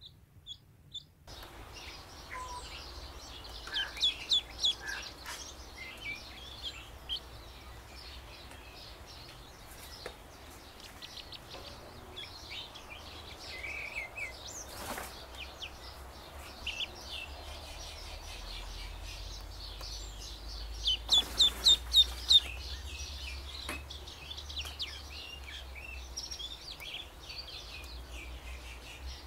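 Duckling peeping: short, high, falling peeps, some scattered and some in quick runs, with the loudest run of about half a dozen rapid peeps around two-thirds of the way through.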